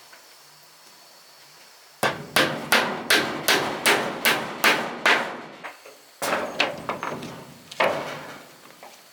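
Hammer blows on wood, a steady run of about three strikes a second for some three and a half seconds, then a short pause and a couple more blows.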